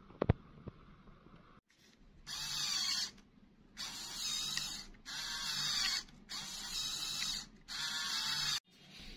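LEGO Technic motor and plastic gears of an RC car's servo-less steering running in five short bursts of about a second each, a gritty whirring and clicking of gears as the steering is driven back and forth. A couple of sharp clicks come just before the first burst.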